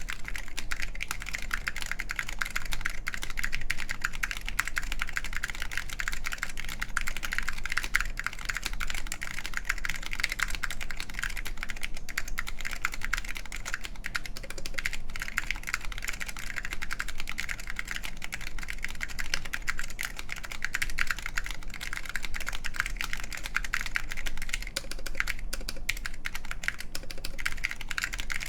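Fast, continuous typing on a mechanical keyboard with SKCL Green linear Alps switches in an aluminum plate and Apple Extended Keyboard II keycaps: a dense stream of sharp, bright key clacks.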